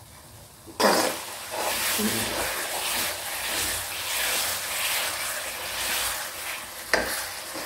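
Onion-tomato masala sizzling in a steel kadai as a steel ladle stirs through it with swishing strokes about once a second. The ladle knocks against the pan about a second in and again near the end.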